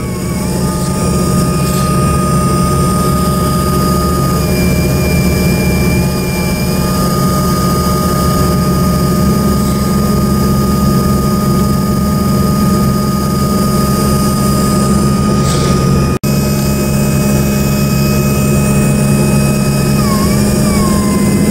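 Embraer 145's rear-mounted Rolls-Royce AE 3007 turbofan at ground idle, heard from the cabin just ahead of it: a steady low rumble under a high whine. The sound cuts out for an instant about 16 seconds in, and near the end the whine wavers and settles a little lower.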